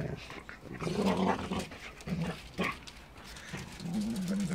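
A Caucasian shepherd and a giant poodle play-fighting, growling in several short bouts.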